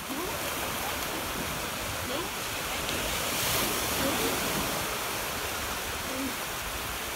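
Small waves breaking and washing up on a beach: a steady rush of surf.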